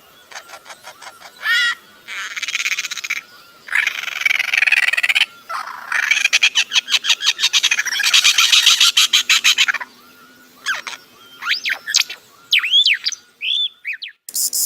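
A bird calling in long runs of fast rattling chatter, broken by short pauses, then a few short rising-and-falling whistled notes near the end.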